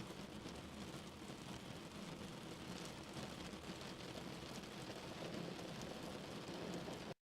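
Heavy rain falling steadily, a faint, even hiss with tiny drop ticks, which cuts off suddenly near the end.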